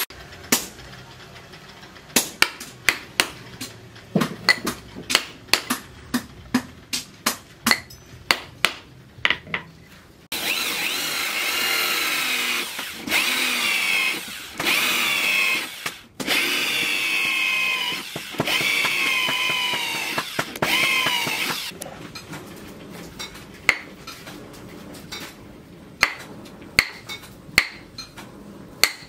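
Cordless drill boring into the end of a wooden handle, its motor pitch rising and falling under load and stopping and restarting several times. Before and after the drilling come rows of sharp taps, about two to three a second at first, sparser near the end.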